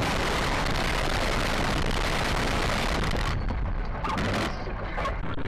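A vehicle in motion recorded by its own dash cam: a loud, even rush of road and wind noise that falls away abruptly about three seconds in, followed by a few faint knocks.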